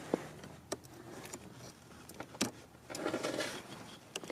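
A few scattered sharp clicks and faint scraping from a small pry tool working at the plastic retaining clips of the eccentric shaft sensor on a BMW N62 V8.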